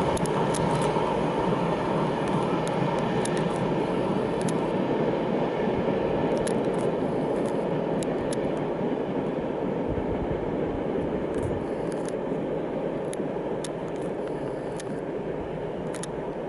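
Freight train of covered wagons rolling away along the track: a steady rumble of wheels on rails that slowly fades, with scattered sharp clicks.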